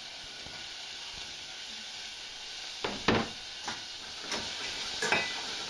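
Diced carrots and onions sizzling in olive oil in a saucepan, a steady hiss. A couple of sharp knocks come about halfway through, then a few lighter clicks.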